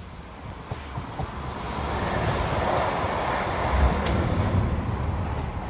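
A train passing: a low rumble under a rushing noise that builds to a peak about three to four seconds in, then eases off.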